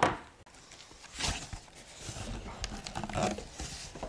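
Cardboard shipping box being opened by hand: flaps pulled back and folded open, with irregular rustling and scraping of cardboard.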